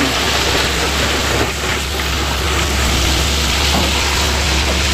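Truck engine running steadily, a constant low hum under an even hiss.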